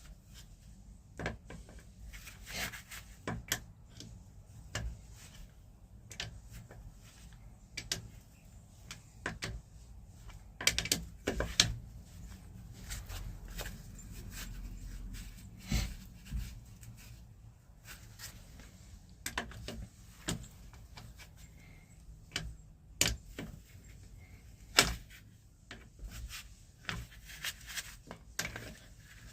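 Irregular clicks, taps and knocks of hand tools and metal parts being handled while fasteners on a loader joystick assembly are fitted and tightened, with a loud flurry about 11 seconds in and sharp single knocks near the end.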